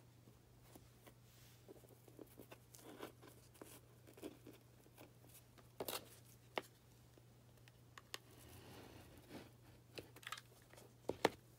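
Small tabletop handling sounds: plaid ribbon rustling and scattered light taps and clicks as a pen, the ribbon and a hot glue gun are handled. There is a sharp double tap near the end.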